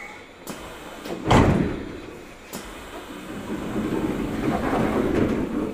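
A heavy thud about a second in, followed by a rushing noise that builds over a couple of seconds and then fades, at a station platform beside a stopped train.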